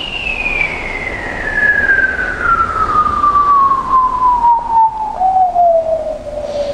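A single pure, whistle-like tone that falls slowly and steadily in pitch from very high to middle, with a small jump back up about five seconds in.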